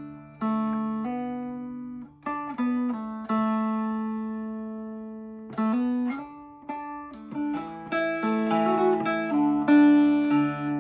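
Seahorse Mini Jumbo mountain dulcimer, a handmade redwood-topped walnut dulcimer with a deep bass, played solo: plucked and strummed notes ring out over steady low strings, with one long-held note around the middle and quicker, louder picking near the end.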